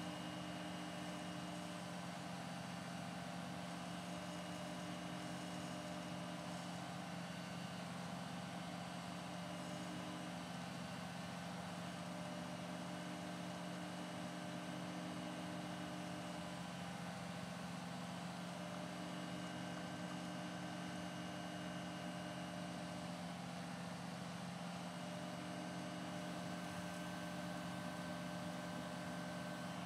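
Vermeer XR2 vacuum excavator running steadily while its dig tube sucks soil out of a pothole: a constant drone of several held tones over an even rushing noise.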